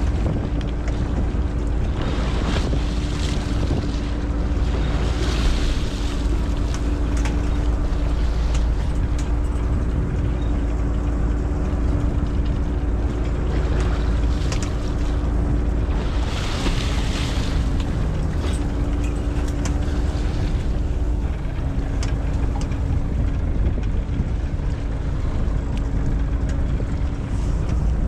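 Fishing boat's engine running steadily with a low rumble and a constant hum, with wind on the microphone and waves splashing against the hull.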